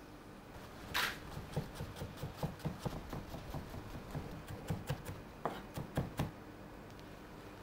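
Chef's knife mincing garlic on a cutting board. A sharp first cut comes about a second in, then quick taps of the blade on the board, about four a second, stopping a little after six seconds in.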